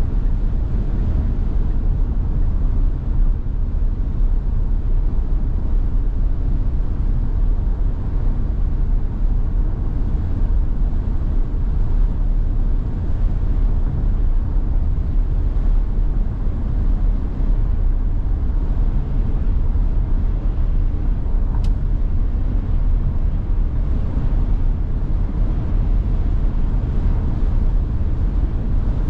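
Steady low rumble of road and wind noise inside a Tesla Model Y's cabin as it drives in strong, gusty wind.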